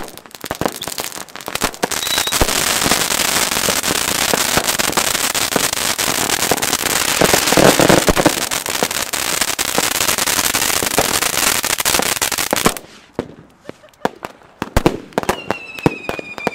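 Many fireworks going off at once. Scattered bangs become a dense, continuous barrage of crackling and reports about two seconds in. The barrage cuts off suddenly a few seconds before the end, leaving scattered bangs and a falling whistle.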